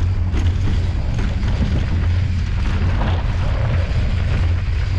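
Mountain bike riding downhill: a steady, heavy wind rumble on the bike-mounted camera's microphone, with the tyres rolling and the bike rattling and clicking over bumps.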